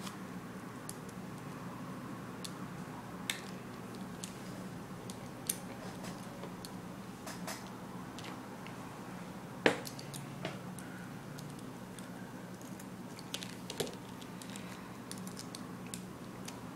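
Beyblade parts being handled and fitted together during assembly: scattered light clicks and ticks, with one sharper click about ten seconds in, over a steady low hum.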